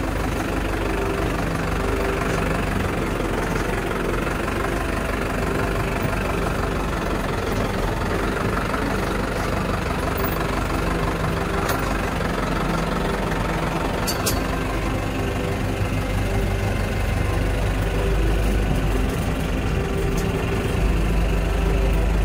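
Safari vehicle engine idling steadily, its low hum growing louder near the end.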